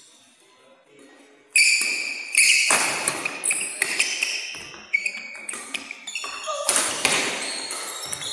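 Badminton rally: the shuttlecock is struck back and forth by rackets, starting about a second and a half in, with sneakers squeaking sharply on the court floor as the players lunge.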